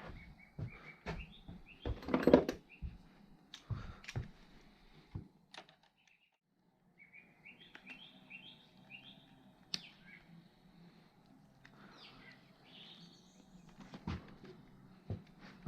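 A small bird chirping in runs of short high notes, over scattered clicks and knocks of hand tools, the loudest a clatter about two seconds in.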